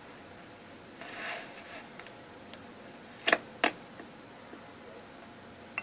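A short rustle about a second in, then two sharp knocks in quick succession about three seconds in, and a faint click near the end: handling or movement noise.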